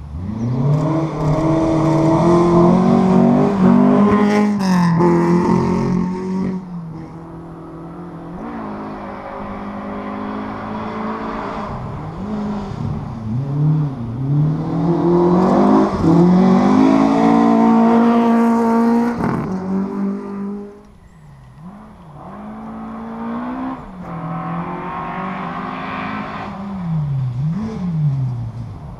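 Rally car engines revving hard as the cars run the stage, each note climbing and then dropping back as they shift up through the gears. There are two loud passes, one in the first few seconds and one around the middle, and a quieter one near the end.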